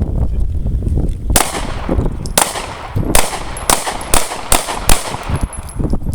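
Pistol shots fired by several shooters in a range drill: about seven sharp reports, irregularly spaced, starting a little over a second in, the last four coming quickly together.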